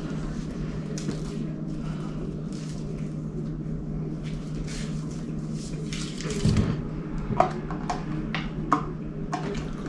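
Eating sounds at a table: a plastic fork clicking and scraping in a takeout container, with a few sharper clicks and a low thump in the second half, over a steady low electrical hum.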